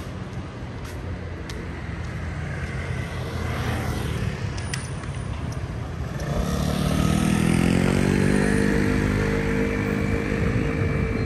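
Street traffic, with one motor vehicle's engine drone growing loud about six seconds in and holding as it passes close.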